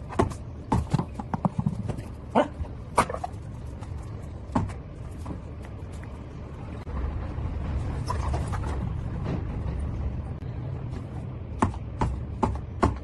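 Irregular sharp knocks and taps in quick clusters, then a steadier rushing noise, with a few more knocks near the end.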